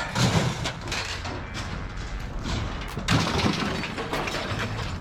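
Junk being pulled and shifted by hand: a run of clattering, scraping and knocks, with louder thumps near the start and about three seconds in.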